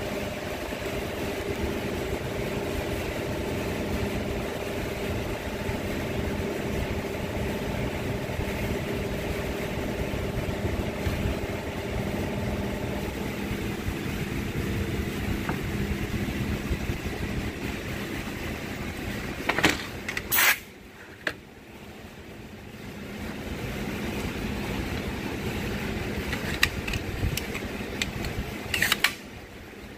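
Shop fans running as a steady drone, with a few sharp clacks of tools being handled on the bench about two-thirds of the way through and again near the end.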